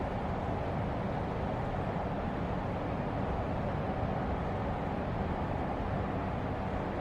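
Steady low rumble of railway station platform ambience, with no distinct events.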